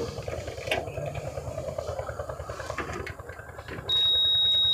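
Steady high-pitched electronic warning buzzer from the Sonalika Tiger DI 65 CRDI tractor's instrument cluster, sounding with the ignition switched on. It starts abruptly near the end and holds one unbroken tone, over a low background rumble with a few light clicks.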